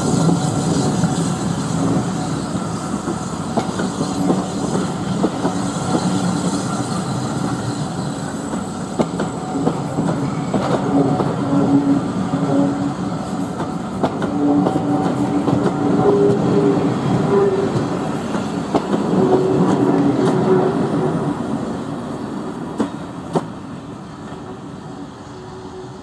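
Steam-hauled passenger train, led by BR Standard class 4 2-6-4T tank locomotive No. 80080, rolling past with its coach wheels clicking over the rail joints. The sound fades away during the last few seconds as the train draws off.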